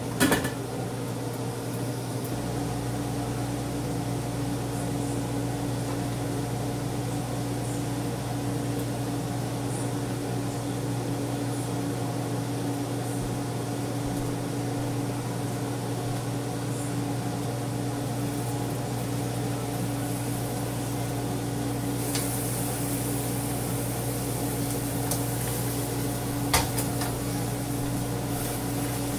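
Steady hum of a kitchen range hood fan. A spatula knocks sharply on the pan twice, just after the start and near the end, and a high hiss comes in about three quarters of the way through.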